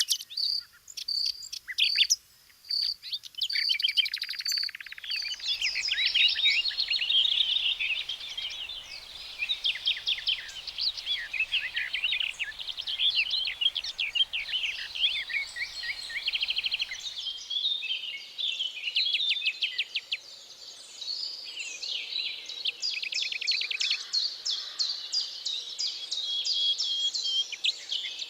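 Several songbirds singing at once: a dense chorus of overlapping chirps, warbles and trills, with a fast, evenly repeated high note in the first few seconds.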